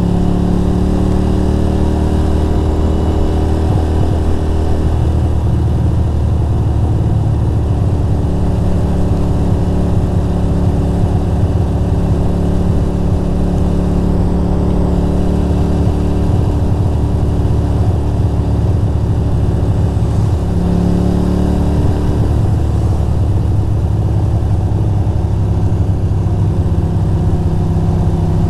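Ducati Monster 620's air-cooled L-twin engine running steadily under way. The note shifts briefly about five seconds in and again about twenty-one seconds in.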